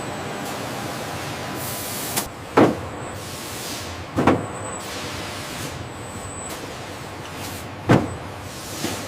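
Steady machinery noise with three loud, heavy thuds, about two and a half seconds in, just over four seconds in, and near the end.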